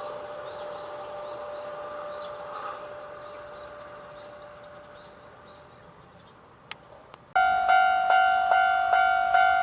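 Japanese railway level-crossing warning alarm starts ringing suddenly about seven seconds in, a loud electronic ding about twice a second. Before it, a steady tone slowly fades away.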